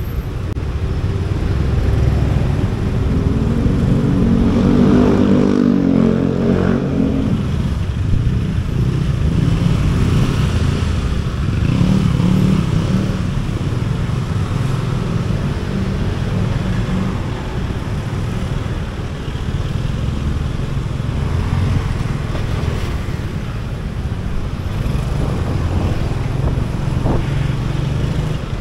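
Motorcycle riding in city traffic: a steady low engine and road rumble, with an engine's pitch climbing and then dropping about four to seven seconds in.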